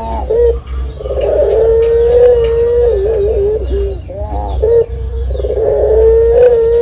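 A puter (Barbary dove) cooing in long, drawn-out high notes: one long held note, a warbling break with a few short calls, then another long held note.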